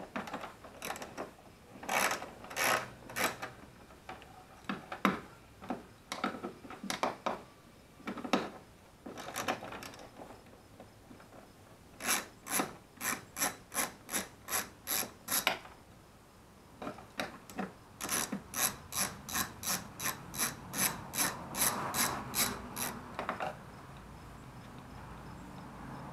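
Hand socket ratchet clicking in quick back-and-forth strokes, about three a second, in several runs with pauses between. Bolts are being turned by hand in the engine bay.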